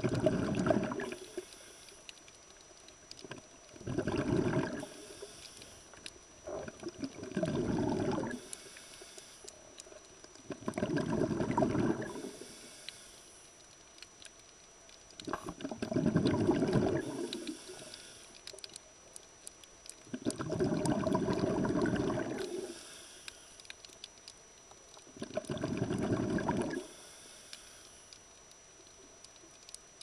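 Scuba diver breathing underwater through a regulator: the exhaled bubbles rush out in regular bursts, about one every four to five seconds, with quieter gaps between breaths.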